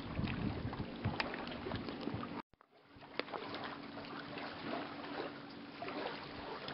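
Seaside ambience: wind on the microphone and water over a steady low hum of a boat engine, with a few sharp handling clicks. The sound cuts out for about half a second at an edit two and a half seconds in.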